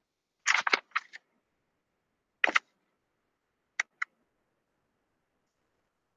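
Computer mouse clicking: a quick run of four clicks about half a second in, a single click a couple of seconds later, then two close together near the middle.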